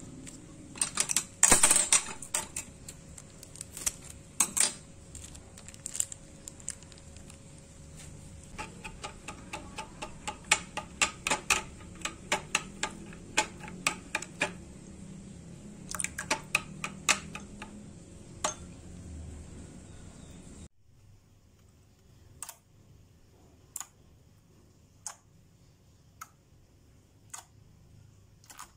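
A metal spoon stirring slime mixture in a glass bowl, clicking and scraping against the glass in quick irregular runs. About two-thirds of the way through this gives way to a quieter stretch of sparse single clicks, about one a second, as the slime is pressed and kneaded by hand.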